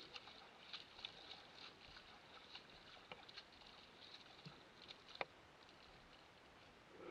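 Faint footsteps splashing through a shallow puddle, heard as a string of small ticks and splashes, with one sharper click about five seconds in; the steps grow quieter after that.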